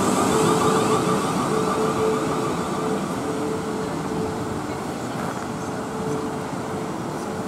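Siemens Desiro Class 450 electric multiple unit pulling away from the platform: wheels rumbling over the rails under a steady electric whine, both fading as the train draws away.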